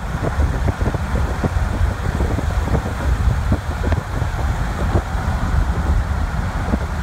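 Car driving at speed across a bridge: steady road and engine noise, with heavy wind rumbling and buffeting against the microphone.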